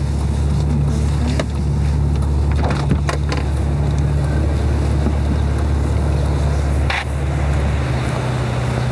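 Ferrari FF's 6.3-litre V12 running at low revs in slow traffic, heard from inside the cabin as a steady low drone, with a few light knocks. Near the end it gives way to a different, steadier engine hum.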